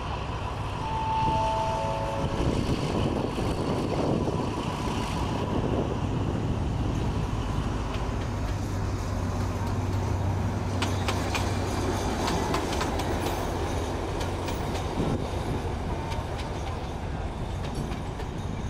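Alsthom diesel locomotive running as it moves slowly through the station yard, with a steady low engine drone and, past the middle, a couple of seconds of wheel clicks over the rails. A three-note falling chime sounds about a second in.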